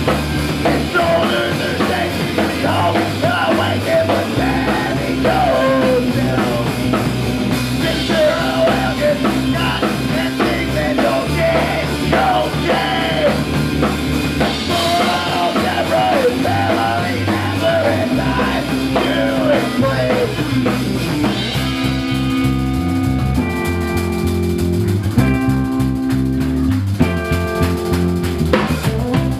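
Live rock band playing an instrumental stretch of a song: drum kit, bass and electric guitar, with a lead line that wavers and bends in pitch over the top for most of it. In the last several seconds the band switches to short stop-start chords.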